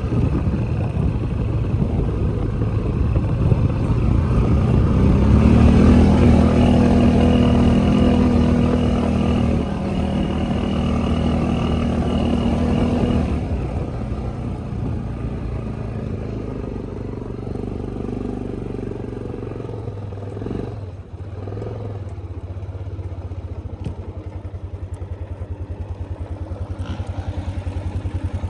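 ATV engine running on a trail ride: it pulls harder and louder for several seconds, then settles to a steadier, lower drone, with a brief drop in throttle about three quarters of the way through.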